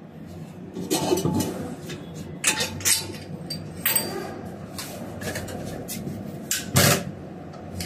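Scattered knocks and clanks of hard workshop equipment being handled while gear oil and a hand pump are readied for a manual transmission refill. About five sharp knocks, the loudest near the end, over a steady low hum.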